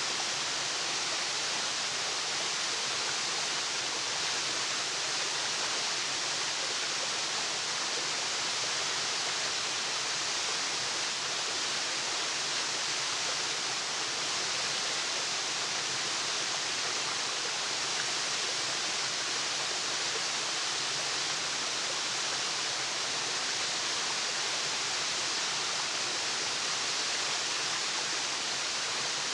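Waterfall: a steady, even rush of falling water, strongest in the hiss range, with no changes.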